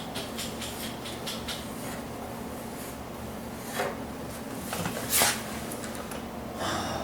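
A hand tool rubbing and scraping on metal in short, even strokes for the first second and a half, then three brief, louder scrapes, the loudest about five seconds in.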